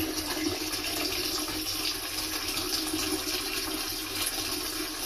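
A person urinating into a toilet bowl: a steady stream splashing into the water.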